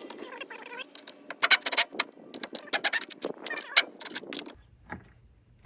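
A hand tool fitted with a bit turning a fastener on car bodywork: a run of sharp, irregular clicks and short squeaks, several a second. About four and a half seconds in it gives way to a quieter steady hum with a few faint ticks.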